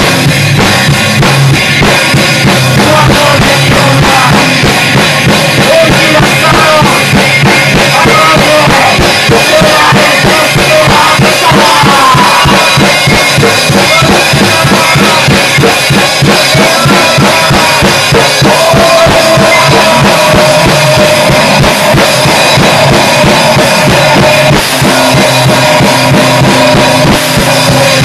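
Grindcore band recording: fast, dense drumming with distorted electric guitar.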